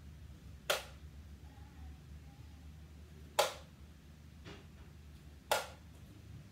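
Three thrown darts landing one after another, each with a short, sharp knock about two to three seconds apart; the second is the loudest.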